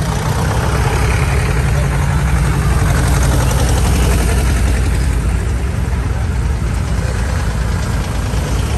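Vintage farm tractors driving slowly past one after another, their engines running with a steady, rapid low pulsing that grows a little louder in the middle as one passes close.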